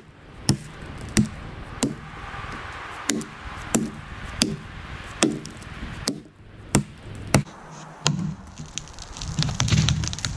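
Scandinavian forest axe chopping into the trunk of a small standing tree to make the back cut of a felling notch. About ten sharp strikes land roughly one every 0.7 seconds, then stop about three-quarters of the way through, giving way to softer, irregular noise.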